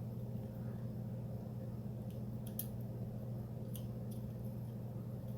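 A few faint, light clicks of small parts in a Mossberg 500's plastic trigger housing being handled as the plunger and spring are settled, over a steady low hum.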